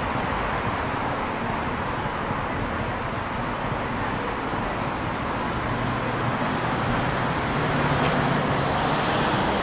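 Street traffic on a shopping street: cars passing, with one vehicle's engine hum growing louder over the last few seconds as it goes by. A single sharp click about eight seconds in.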